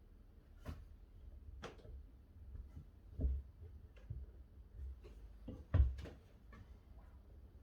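Scattered light knocks and clicks at irregular intervals, with two louder thumps about three and six seconds in, over a low hum.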